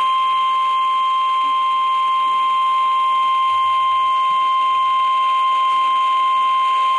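NOAA Weather Radio warning alarm tone (1050 Hz): one loud, steady, unbroken high beep with fainter overtones. The tone alerts listeners that a warning message, here a severe thunderstorm warning, is about to be broadcast.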